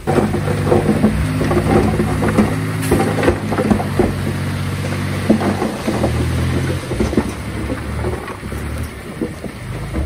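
Komatsu D31A bulldozer's diesel engine running, with repeated clanks and knocks of machinery throughout; the engine note changes about six seconds in.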